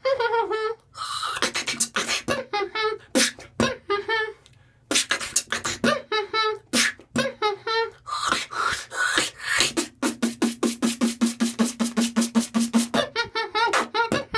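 Beatboxing a chicken-imitation pattern: short wavering vocal clucks alternating with sharp mouth clicks and hissing snare-like strokes. About ten seconds in it switches to a fast run of clicks, about ten a second, over a steady hummed tone that lasts roughly three seconds.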